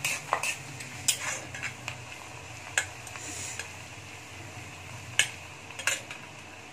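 Flat metal spatula stirring in a kadhai, giving irregular sharp knocks and scrapes against the pan, over a faint steady sizzle of sliced onions and dried red chillies frying in mustard oil.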